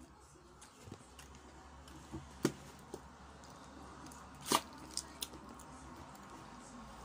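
A person drinking water from a plastic bottle: faint swallowing and handling of the bottle, with a few sharp clicks and crackles, the loudest about four and a half seconds in.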